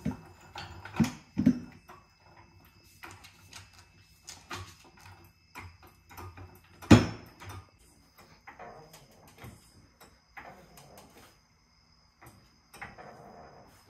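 Low-profile floor jack worked by its long handle: irregular metal clicks and clanks, with two strong knocks about a second in and one loud clunk about seven seconds in.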